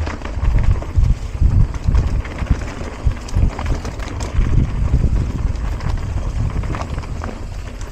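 Mountain bike riding down a rocky trail: tyres rumbling over stones and the bike rattling, with irregular knocks as it hits rocks, under a low rumble of wind on the microphone.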